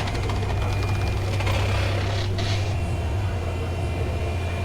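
A steady low mechanical drone, like a machine or engine running, with faint rapid ticking in the first second and two brief hissing noises about halfway through.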